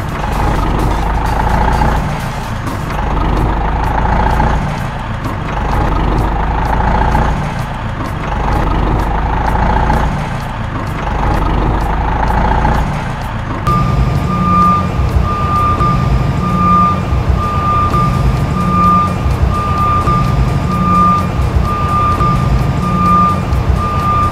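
Scale RC dump truck's simulated diesel engine sound, rising and falling about every second and a half. About fourteen seconds in it switches to a reversing alarm beeping a little more than once a second over the engine's throb.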